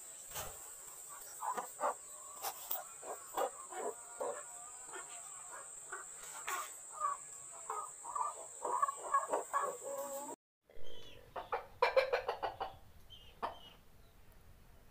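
Chickens clucking and squawking in many short, rapid calls during mating, over a steady high-pitched tone. About ten seconds in the sound drops out for a moment, then a louder burst of calls follows.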